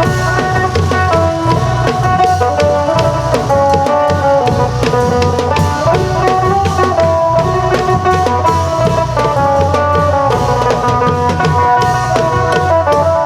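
Isan klong yao long-drum ensemble playing with a phin lute melody: dense hand-drum strokes under a continuous run of plucked notes, loud and steady.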